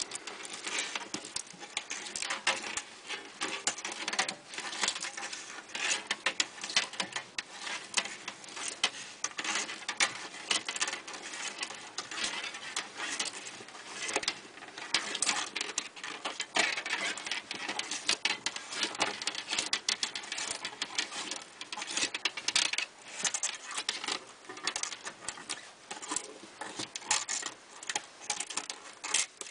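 Steel return spring of an easy-start chainsaw recoil starter being wound by hand, coil by coil, into its plastic guide: a steady stream of small irregular clicks and scratches as the coils slip against each other and the plastic, with the rustle of work gloves.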